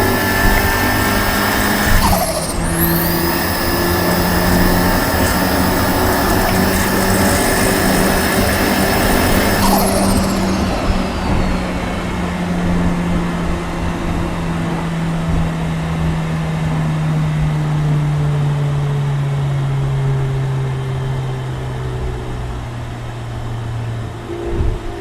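Turbocharged 1.9 20-valve four-cylinder engine of an Audi A4 B5 running on the move, with a steady engine note and rushing hiss; about ten seconds in the hiss fades and the engine note falls slowly as the car eases off.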